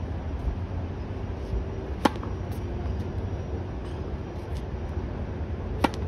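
A tennis racket striking a ball on a serve near the end, one sharp pop, with a single sharp knock about two seconds in, all over a steady low rumble.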